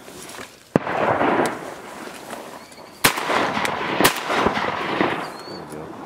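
Shotgun shots from duck hunters firing at teal: one about a second in, then two or three more in quick succession around the middle.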